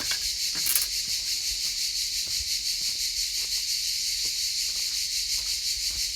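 A steady, high, finely pulsing chorus of insects, grasshoppers or crickets, runs throughout. Faint scattered taps and scrapes sound under it, with one brief louder rattle under a second in.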